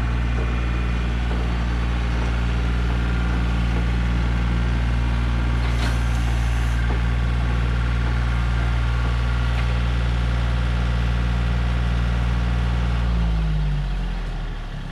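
Yanmar compact diesel tractor engine running steadily; near the end the engine speed drops and the sound falls away as it is throttled down.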